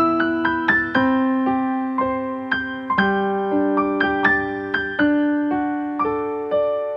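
Background piano music: a steady run of struck, decaying notes over chords that change every second or two.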